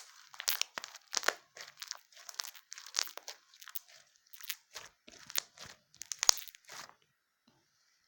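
Crunchy slime being squished and pressed, a quick irregular run of crackles and crunches that stops about seven seconds in.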